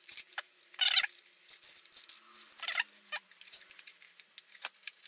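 Ratchet wrench turning the centre bolt of a three-jaw gear puller to draw a splined ring off a gearbox shaft: two short runs of ratchet clicking, about a second in and near three seconds, with a few single metal clicks between.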